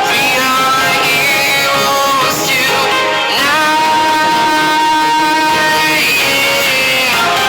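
Pop song playing, a singer over guitar-led backing, with one long held note in the middle.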